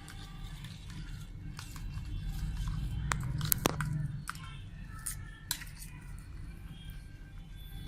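Eggs being beaten in a bowl: a utensil whisking through the mix with irregular sharp clinks against the bowl, the loudest a little past three seconds in, over a low steady hum.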